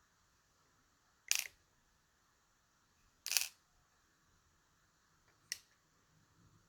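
Three short, sharp clicks about two seconds apart, from the small pins of a DOM RS Sigma lock being taken out and set down as the lock is gutted.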